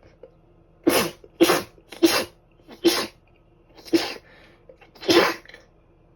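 A fit of six short, sharp sneezes in quick succession, about half a second apart at first and spreading out to about a second apart.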